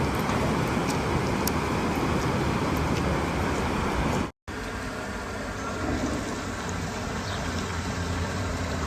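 Steady rushing of river water through a rafting stretch, a dense even hiss with a low rumble; it cuts out abruptly about four seconds in and resumes slightly quieter.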